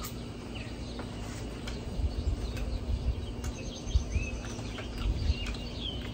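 A few light clicks and knocks of a fork and knife on a plate as steak is cut, with scattered faint bird chirps in the background.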